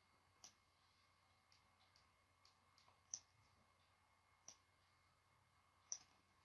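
Computer mouse clicking: four sharp clicks spaced a second or more apart, with a few fainter clicks between, over near silence.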